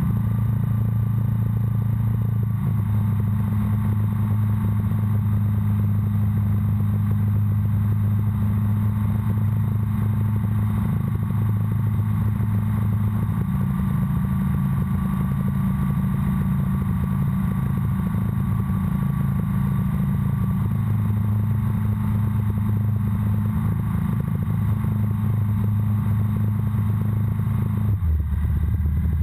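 Breezer ultralight's piston engine and propeller droning steadily in flight, heard with airflow noise. The pitch shifts slightly a few times and drops near the end as power comes back on the approach to the runway.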